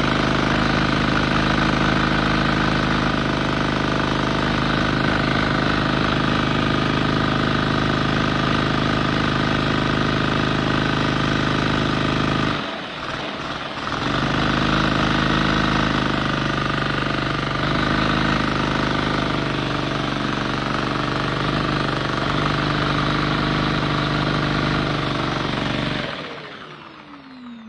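LEGO model engine running steadily with a mechanical whir and clatter. It drops out briefly about halfway through, picks up again, then winds down near the end with a falling pitch as it spins to a stop.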